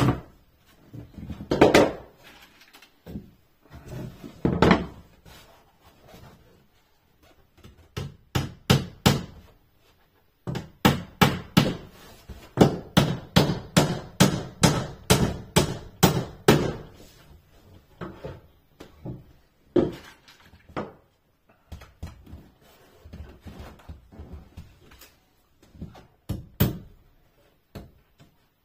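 Hammer driving small nails into a wooden panel: scattered single blows, then a fast run of strikes, about three or four a second, lasting several seconds, then a few more spaced blows.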